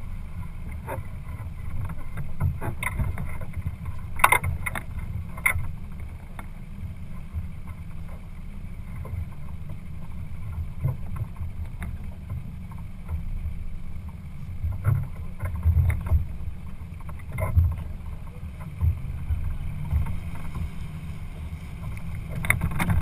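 Low, gusting rumble of a boat under way, with wind buffeting the microphone. A few sharp knocks break through, the loudest about four seconds in and again near the end.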